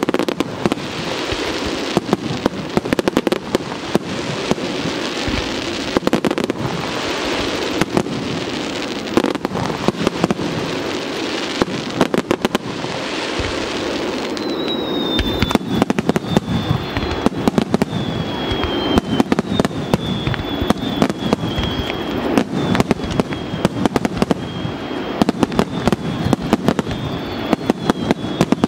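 Fireworks display: aerial shells bursting in a rapid, unbroken run of bangs and crackles. From about halfway, a thin high whistle sinks slowly in pitch beneath the bangs.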